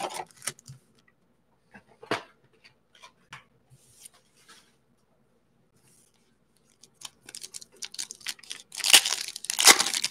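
Foil trading-card pack wrapper handled and torn open. A few light scattered rustles and clicks come first, then from about seven seconds a run of crinkling and tearing, loudest near the end.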